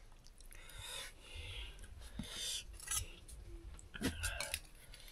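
Faint clinks and scrapes of steel plates and bowls during a meal, with a few small clicks about three and four seconds in.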